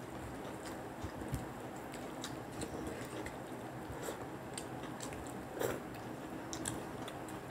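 Two people eating rice and curry with their fingers: chewing and mouth sounds, with short scattered clicks of hands and food against the plates, the loudest a little past halfway, over a steady background hiss.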